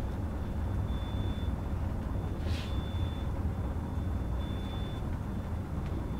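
Steady low room hum with a faint high whine that comes and goes, and a brief whiteboard-marker stroke about two and a half seconds in.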